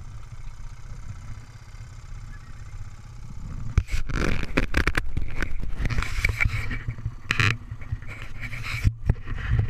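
ATV engine idling low and steady, with rustling and crackling handling and wind noise on the action-camera microphone from about four seconds in.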